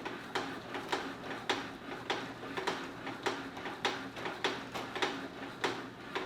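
Rapid, regular clicking, about three sharp clicks a second, over a low steady hum in a small room.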